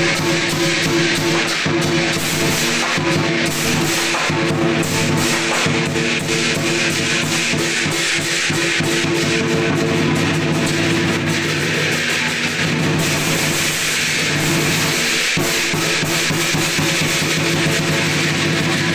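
Lion dance percussion: a drum beaten in a fast, continuous rhythm together with a ringing gong.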